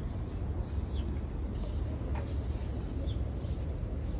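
Steady low outdoor rumble with a few short, faint bird chirps scattered through it.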